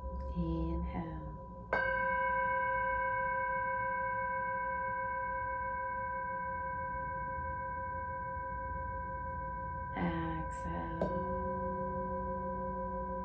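Brass singing bowl struck once with a felt mallet about two seconds in, ringing on with several steady overtones that slowly fade. Brief soft voice sounds come near the start and again about ten seconds in.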